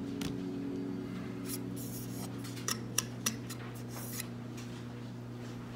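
Small metal hand tools clinking and scraping as they are handled on a workbench mat, with several sharp clicks, the loudest about three seconds in. A steady low electrical hum runs underneath.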